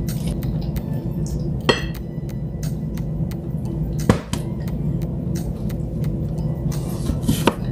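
Three sharp clinks of tableware (chopsticks, bowl and plates) during eating, the loudest about four seconds in, over a steady low hum.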